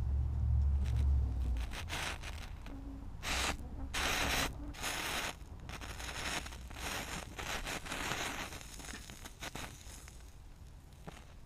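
Irregular scraping and rubbing strokes of varying length, hand work on the radiator's soldered tank seam, with a low rumble that dies away in the first two seconds.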